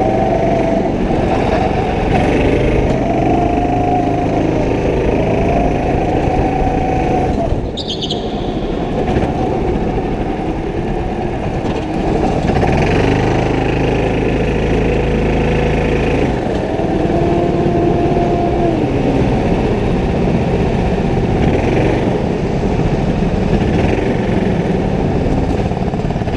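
Go-kart engine running hard, heard from on the kart, its pitch rising and falling every second or two as the throttle is opened and lifted through the corners. A heavier low rumble comes in for a few seconds about midway.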